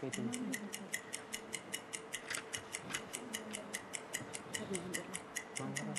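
Quiz-show countdown timer ticking steadily, about six or seven ticks a second, marking the minute allowed for the answer, with faint voices of contestants conferring underneath.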